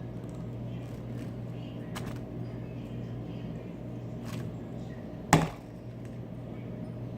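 A single sharp knock about five seconds in, with a few faint clicks before it, over a steady low hum.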